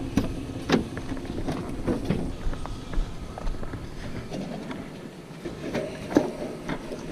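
Metal fire pit with a wire-mesh spark screen rattling and clanking as it is picked up and carried, giving a scattering of sharp metal knocks.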